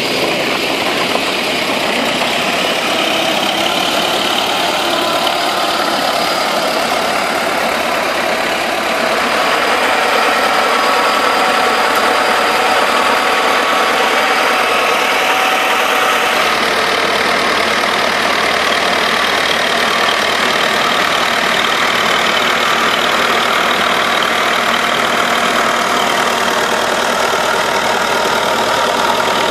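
Turbocharged T-40 tractor's diesel engine running steadily under load as it drives a rotary tiller through the soil; the sound gets a little louder about nine seconds in.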